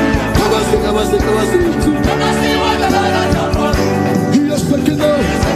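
Upbeat gospel praise music with a steady drum beat and sung vocals gliding over it.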